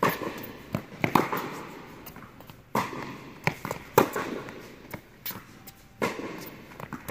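Tennis rally on an indoor hard court: repeated sharp pops of balls struck by rackets and bouncing, each echoing in the hall, the loudest a forehand about four seconds in.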